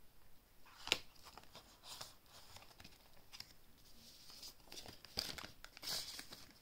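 Paper banknotes and cash envelopes being handled: soft crinkling and rustling with scattered small clicks, the sharpest a little under a second in and a longer rustle near the end.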